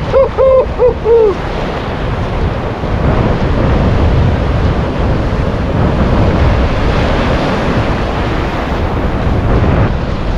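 Ocean surf washing on the shore with wind buffeting the microphone, a steady loud rush and low rumble. In the first second or so a person gives a short, broken call.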